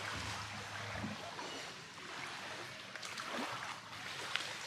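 Shallow seawater splashing and lapping as a man wades and works his hands in it, rinsing seafood, with a few small splashes about three seconds in.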